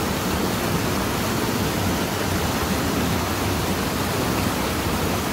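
Steady rushing of a fast-flowing, muddy stream, one even wash of water noise.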